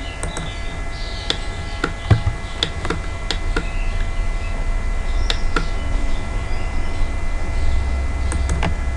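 Computer mouse and keyboard clicks, about a dozen short taps at irregular intervals, over a steady low electrical hum with faint high whine tones.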